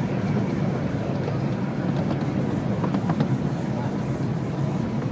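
A narrow-gauge passenger train running along the track, heard from aboard a carriage: a steady rumble of wheels on rail with a few light clicks.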